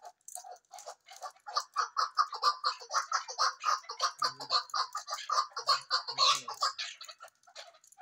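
Chukar partridges calling: a rapid series of short chuck notes, sparse at first, then about five a second from about a second and a half in.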